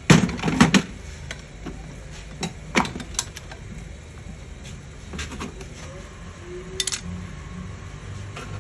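Scattered sharp metallic clicks and knocks from a car steering column and hand tools being handled and shifted about on a metal workbench, several in the first second and a few more spread through the rest.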